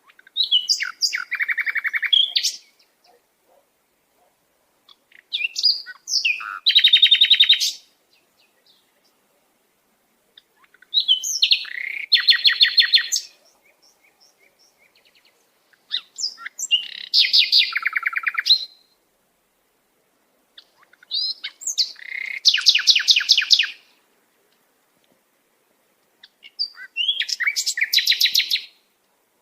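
Sparrow chirping: six bouts of rapid, high-pitched chirps, each lasting two to three seconds, about five seconds apart with silence in between.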